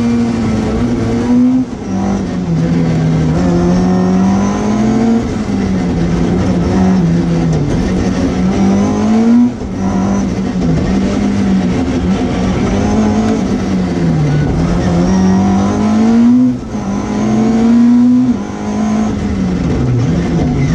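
Mk2 Ford Escort rally car's engine at stage pace, heard from inside the car, its revs rising and falling continuously, with four short drops in loudness.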